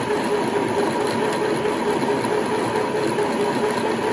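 Aldi Midi sewing machine's motor running steadily, driving the bobbin winder as it fills a bobbin with thread, with a steady whir and hum.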